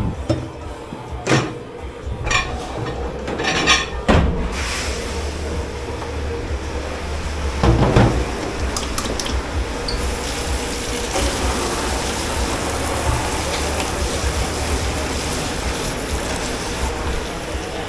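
Dishes knocking and clattering a few times, then water running steadily into a dish-pit sink, heavier from about halfway through. A steady machine hum underneath.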